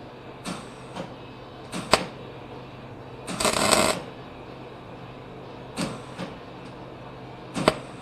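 Wire-feed (MIG) welder trying to tack: a few short, sharp crackles and one sputtering burst of arc about half a second long a little past three seconds in. The arc keeps failing because the wire feeds unevenly, which the welder puts down to slippage in the wire feed.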